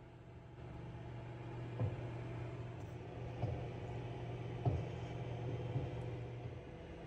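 A steady low machine hum, with a few soft knocks spread through it.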